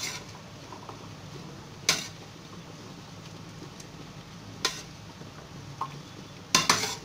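A metal spoon clinks against a plate and an enamel pot as chickpeas are scooped into the sauce: single sharp clinks about two seconds in and near five seconds, then a quick double clatter near the end, over a steady low hum.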